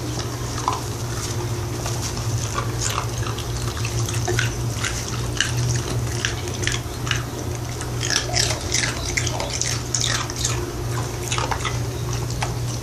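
A small dog chewing an ice cube: irregular sharp crunches and clicks as the ice breaks, over a steady low hum.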